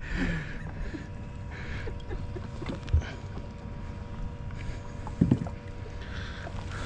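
Water slapping against the hull of a fishing boat under a steady low rumble, with a faint steady hum and two dull knocks, about three and five seconds in.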